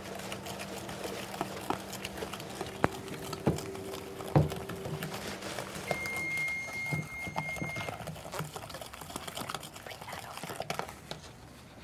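Microwave oven running with a low hum while it melts butter; the hum stops about six seconds in and one long beep follows, marking the end of the cycle. Light knocks and clinks of kitchen utensils and bowls sound throughout.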